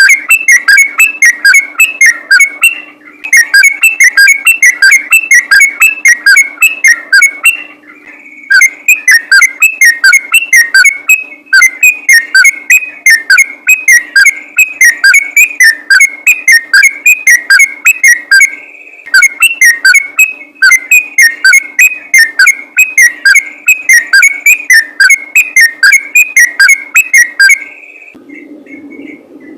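Sooty-headed bulbul (trucukan) singing loudly in a fast, unbroken string of whistled notes, about four a second, breaking off briefly a few times.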